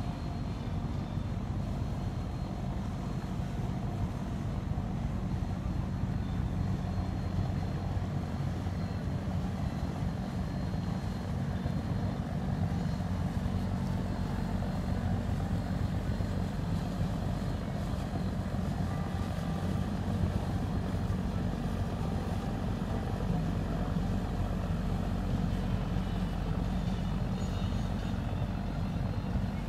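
Engine of a wooden cargo dhow running with a steady low drone as the boat motors past.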